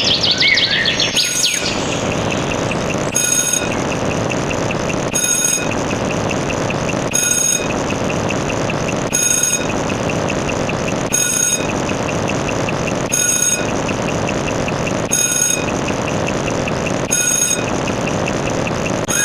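A short, high electronic beep repeating about every two seconds over a steady rumbling mechanical noise, with a warbling, chirping glide just at the start.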